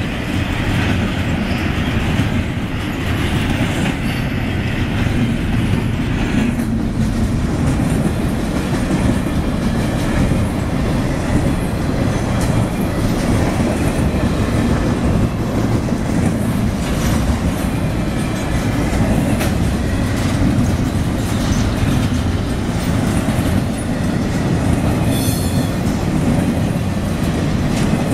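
Intermodal freight train cars rolling past at speed: a steady rumble of steel wheels on the rails, with a constant clickety-clack of wheels over rail joints.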